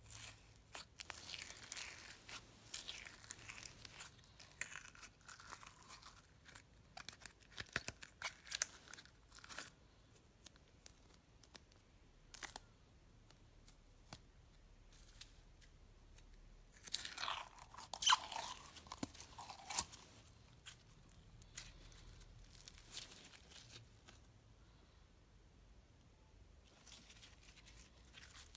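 Floam, slime packed with tiny foam beads, pressed and squeezed by hand, in several bursts of crunchy noise with quiet stretches between.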